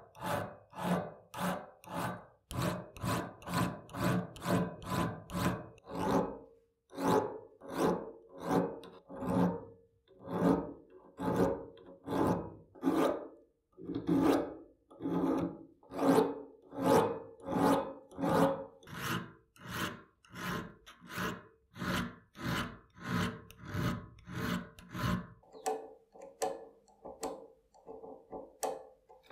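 Hand file rasping back and forth across the metal square-drive head of a torque wrench held in a vise, steady strokes about two a second. The strokes turn lighter near the end.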